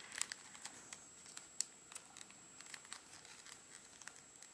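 Origami paper crinkling with faint, irregular small crackles and ticks as fingers pinch and fold it.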